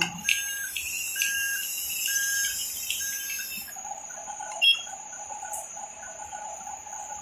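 Night insects chirring steadily, with a short high tone repeating about once a second in the first few seconds and a lower steady buzzing joining about four seconds in.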